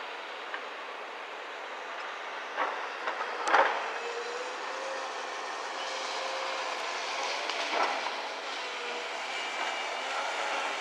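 Link-Belt 210 LX excavator with a log grapple working: the diesel engine and hydraulics run steadily with a wavering pitch, broken by a few knocks and clanks. The loudest knock comes about three and a half seconds in.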